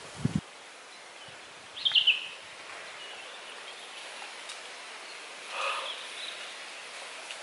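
Woodland ambience: birds chirping over a steady background hiss, with a short falling chirp about two seconds in and another call near six seconds. A brief low thump right at the start.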